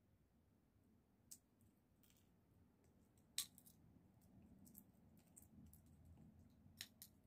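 Sunflower seeds being cracked open and husked by hand: quiet, scattered sharp clicks of shells splitting and seeds set down on the table, the loudest about three and a half seconds in.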